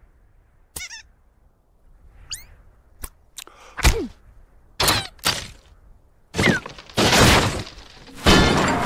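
Cartoon sound effects: a short warbling chirp and a couple of quick rising squeaks, then a string of sharp knocks and whacks with one heavy thud in the middle, ending in two longer noisy crashes of breaking and shattering.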